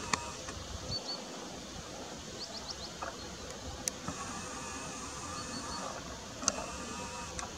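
Outdoor ambience: a steady background hush with a faint low rumble, a few brief high chirps, and three sharp clicks, the loudest of them a little past the middle.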